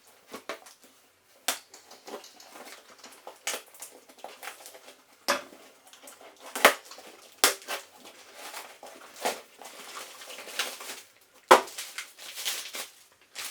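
Irregular crackling, crumpling and clicking of something being handled, a quick run of short, sharp crackles with quieter rustling between them.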